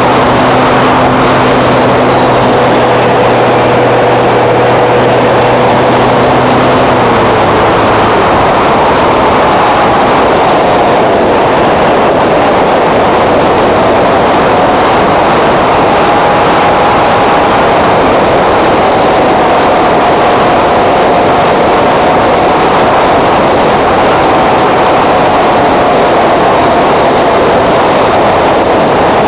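Electric FPV model plane in flight heard through its onboard audio: a loud steady rush of wind and airflow, with the electric motor's hum dying away about seven seconds in as the throttle is pulled back to glide. A faint wavering whine carries on after it.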